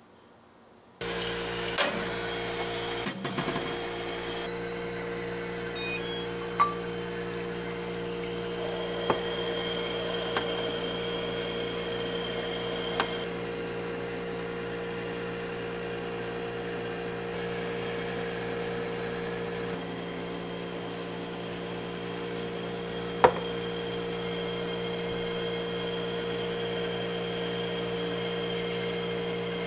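Electric thread-ice (silltaerae) bingsu machine running steadily, a constant motor hum with a whine, as its drum extrudes fine strands of chocolate ice. It starts about a second in, with a few light clicks along the way.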